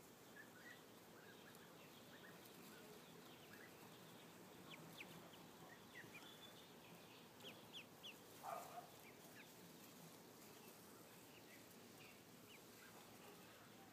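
Ducklings peeping faintly: scattered short, high cheeps, with one brief louder and lower sound a little past halfway.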